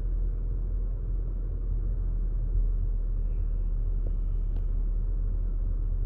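A 2019 Chevrolet Equinox's 1.5-litre turbocharged four-cylinder engine idling steadily, a low hum heard from inside the cabin.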